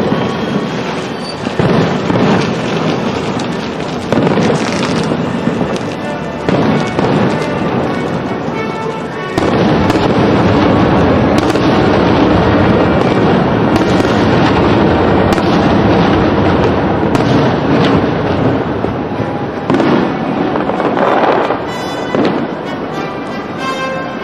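Aerial fireworks shells bursting in a steady run of bangs. About a third of the way in they merge into a louder, denser barrage that eases off after about ten seconds.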